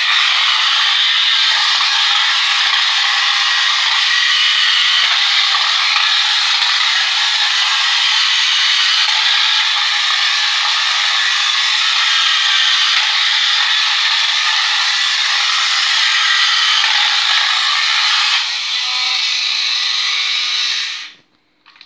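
Toy car's small motor and plastic gears running with a steady, even mechanical whir as it drives across a tiled floor. The sound shifts slightly near the end, then cuts off suddenly.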